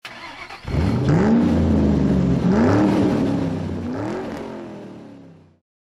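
Racing car engine revving hard, its pitch rising and falling several times, then fading out near the end.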